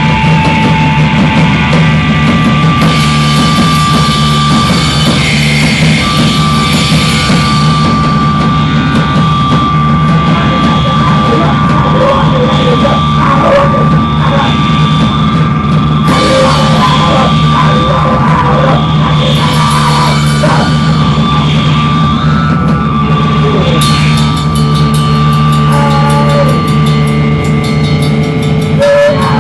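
Live noise-rock band playing loud: a drum kit is pounded continuously under dense electronic noise. A steady low drone and a held high tone run underneath.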